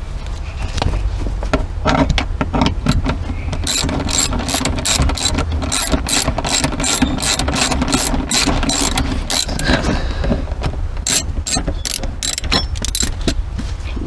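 Hand ratchet wrench clicking as it backs out a 12 mm rear-seat mounting bolt, in quick runs of sharp clicks with a short pause about ten seconds in.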